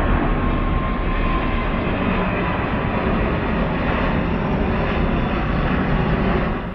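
Jet airliner engines running loud and steady, a dense rush of engine noise that cuts off suddenly near the end.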